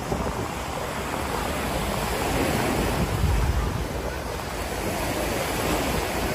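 Ocean surf washing on the beach, with wind buffeting the microphone; the wash swells about three seconds in.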